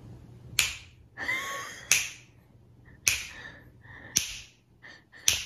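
A person snapping their fingers: about five sharp snaps, roughly a second apart.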